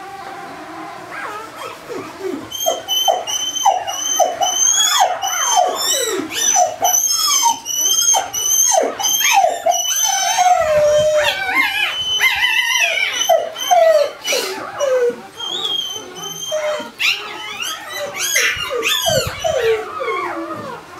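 Four-day-old Barbado da Terceira puppy crying in rapid, high-pitched squeals that each slide down in pitch, with a few longer whines. It is crying at being handled through early neurological stimulation positions.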